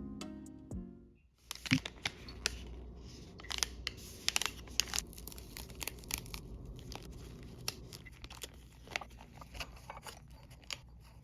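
Packaging being handled and opened by hand: irregular tearing, crinkling and sharp clicks of wrapping, starting after background music stops about a second in.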